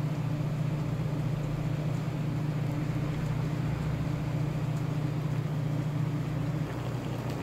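Steady low mechanical hum with a light hiss, like a running fan or motor; it eases slightly near the end.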